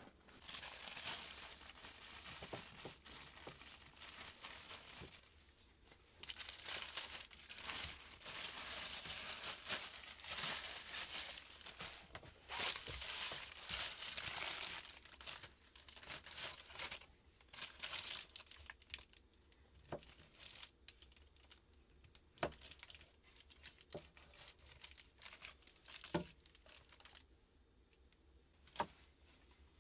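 Brown wrapping paper crinkling and rustling as a paper-wrapped package is unwrapped by hand, for about the first two-thirds. After that come scattered light taps and clicks on the wooden board.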